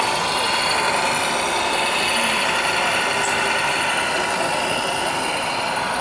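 Radio-controlled Tamiya MAN scale semi-truck driving, with a steady mechanical run of its drivetrain and sound-module engine noise.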